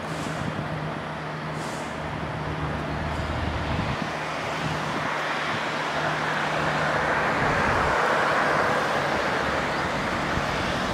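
Airfield engine noise: a steady low hum under a rushing noise that swells and fades about two-thirds of the way through.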